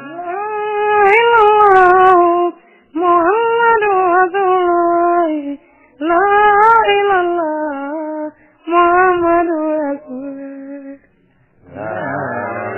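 A high voice singing in four drawn-out phrases of two to three seconds each, with short pauses between them.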